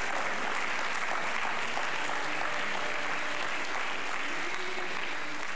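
Theater audience applauding steadily.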